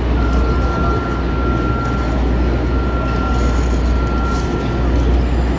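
Steady low rumble of city ambience, with a thin, steady high whine over most of it.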